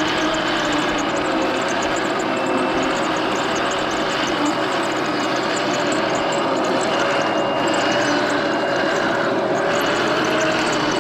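Toy RC M1A2 Abrams tank running steadily: a continuous mechanical whir with a faint held hum and a fast, fine ticking.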